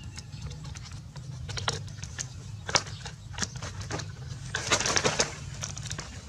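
Dry palm frond stalks and a thin vine cord crackling and clicking as the cord is wound and knotted around them by hand, with a denser run of crackling about five seconds in.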